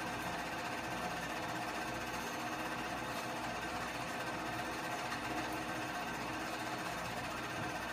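Keystone K-502 8mm movie projector running steadily, its motor and film-advance mechanism whirring as the film plays through.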